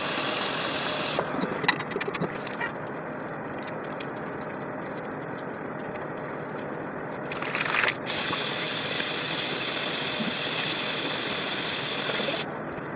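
Bathroom tap running into the sink as hands are washed. It is louder at the start and again from about eight seconds in while the hands are rinsed. In between it is quieter, with light rubbing and splashing as the soapy hands are worked together.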